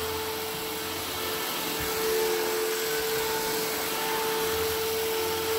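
Hoover Fusion cordless stick vacuum running with its motorised beater bar on carpet: a steady motor whine over a hiss of airflow, with a low rumble from the brush roll that swells and fades as the head is pushed back and forth.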